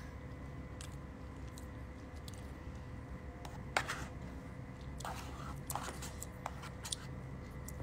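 Eating at a bowl: a fork clicking and scraping against the bowl a few times, the sharpest click about four seconds in, with faint chewing over a steady low hum.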